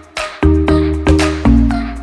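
Background music with a steady beat: sustained bass chords and sharp percussive hits about every quarter second.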